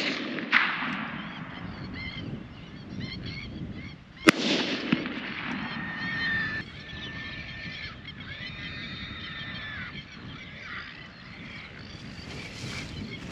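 Rifle shots across open swamp: a sharp crack just after the start and a louder shot about four seconds in, each followed by a ringing echo. Then several seconds of waterbirds calling in a series of steady pitched notes.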